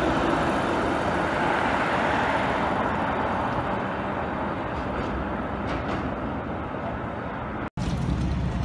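TTC CLRV streetcar rolling past and away along the street track, with a steady rumble and steel-wheel noise from the rails that slowly eases off. Near the end the sound cuts out for an instant and gives way to a deeper, steady hum of another streetcar.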